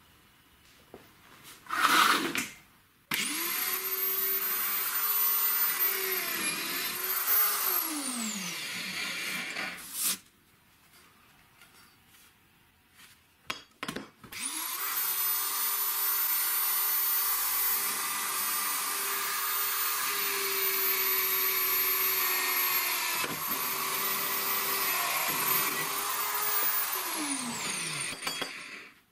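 Corded electric drill in a homemade drill-press stand, running with a steady whine, twice: a short run, then a longer one drilling into a square metal tube. Its pitch dips under load and winds down as each run ends. A loud knock about two seconds in.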